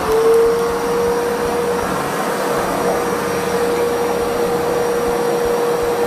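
Sunshinne wet-and-dry water-filtration vacuum cleaner running. Its motor finishes spinning up about half a second in, then holds a steady whine over the rush of air.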